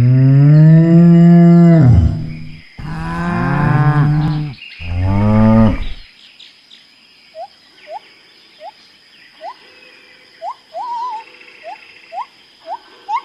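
Cow mooing three times in quick succession; the first moo is the longest and loudest. After that come faint, short rising chirps about once a second.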